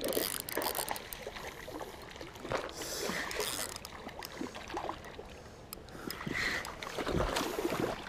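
Water sloshing and splashing, with scattered small splashes, as a hooked smallmouth bass thrashes and is reeled in through shallow creek water.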